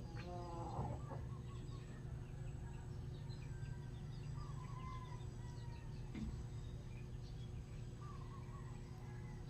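Chickens clucking, with one louder call near the start and scattered faint chirps over a steady low hum.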